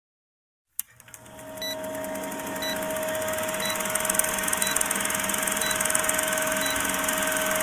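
Old film-projector countdown sound effect: a projector running with a steady mechanical rattle and hum, and a short tick about once a second. It starts about a second in with a click and builds up over half a second.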